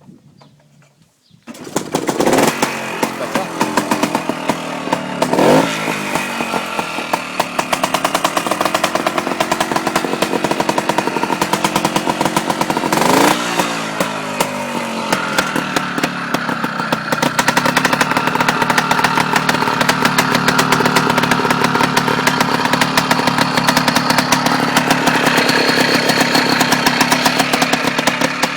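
1956 Francis Barnett trials motorcycle's Villiers two-stroke engine catching about a second and a half in, then revved up and down three times before settling to steady, fast running.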